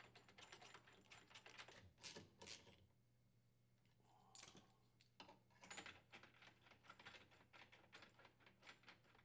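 Faint, scattered clicks and taps of metal bolts and a hand tool as the mounting bolts are threaded into a washer's concrete counterbalance weight, over a faint steady low hum.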